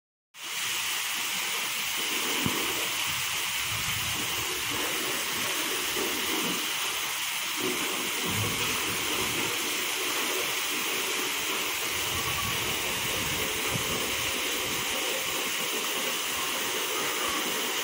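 Heavy rain pouring down in a steady hiss during a thunderstorm.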